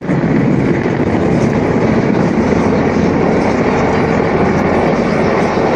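Aircraft flying low overhead: a loud, steady engine rumble that holds without rising or falling.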